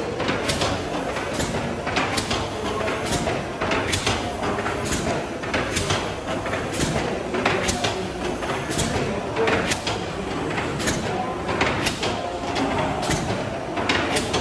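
Bancroft Mill's cross-compound steam mill engine running steadily: a continuous mechanical rumble with a regular clicking rhythm from its valve gear, repeating about once or twice a second.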